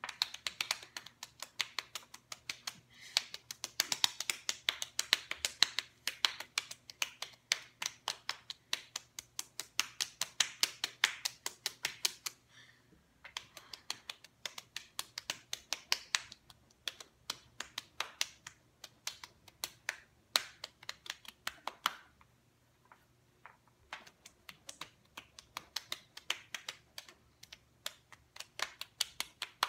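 Open palms slapping bare cheeks over and over, a quick run of sharp smacks several times a second, with two short breaks, one about halfway through and one about two-thirds through.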